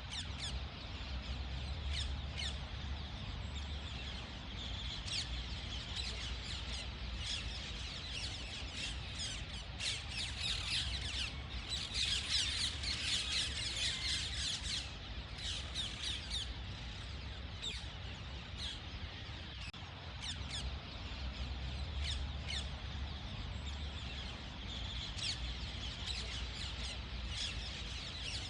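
Parrots squawking and chirping, many short calls overlapping with no pause, busiest for a few seconds before the middle, over a low steady rumble.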